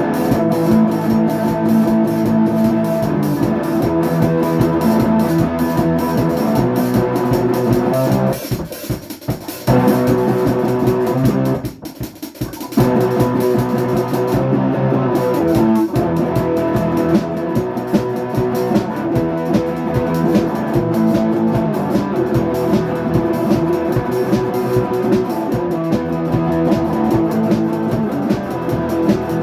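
Rock music played on guitar and drum kit, with two short drops in the playing about nine and twelve seconds in.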